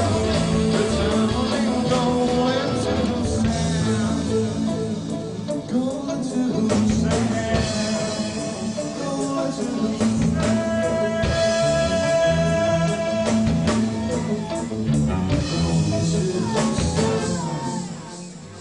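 Rock band playing a song with a singer, guitars and a steady bass line; the music tails off near the end as the song finishes.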